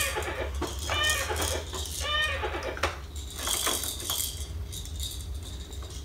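A baby making short squealing vocal sounds, about one a second in the first couple of seconds, while a plastic baby walker toy clicks and clatters under his hands. A steady low hum runs underneath.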